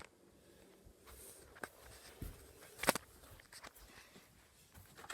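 Faint footsteps and handling noises, with a sharp click about three seconds in.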